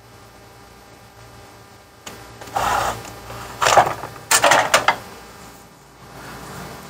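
Tools being rummaged through while searching for a screwdriver: three short bursts of clattering and scraping, about two and a half, three and a half and four and a half seconds in.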